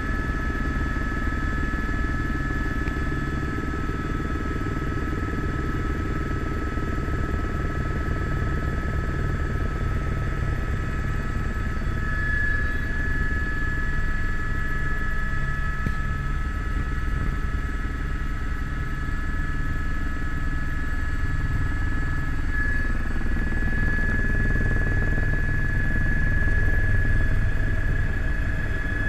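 Helicopter running steadily in flight: a rapid low rotor beat under two steady high whines, one of which fades out about three quarters of the way through.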